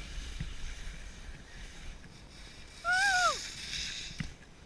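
A puppy giving a single short whine about three seconds in, rising slightly and then dropping away.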